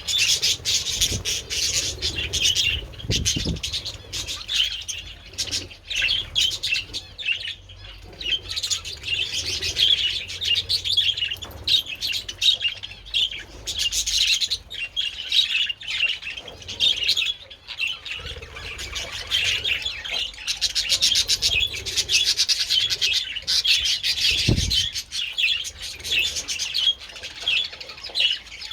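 A colony of budgerigars chattering, many birds chirping and warbling at once, with a couple of short low thumps.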